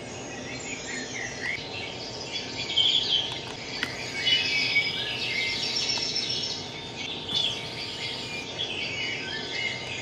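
Small birds chirping and twittering, many short overlapping calls and quick trills, over a steady low background noise.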